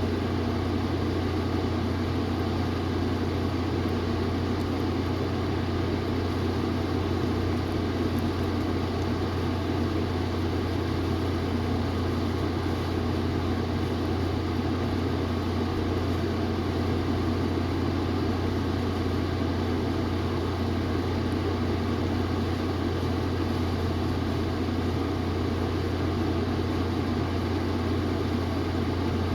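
A steady low machine hum that does not change.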